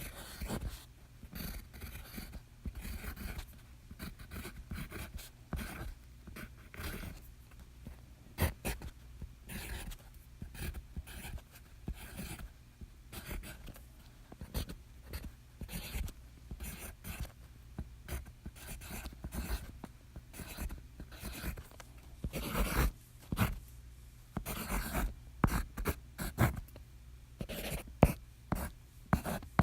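Pencil writing on paper: a run of short scratching strokes, irregular in rhythm, with louder, quicker clusters of strokes near the end.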